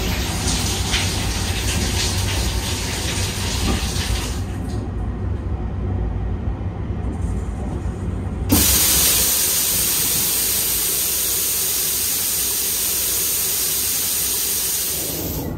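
Low steady rumble of the Sunrise Express sleeper train running. A little over halfway through, water suddenly starts running hard, a loud steady hiss, and stops shortly before the end.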